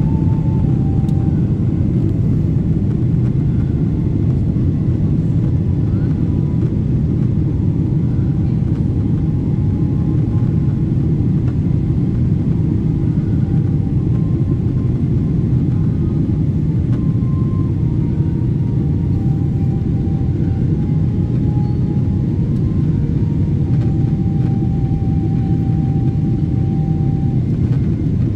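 Steady low rumble of a jet airliner's engines and airflow heard inside the passenger cabin in flight.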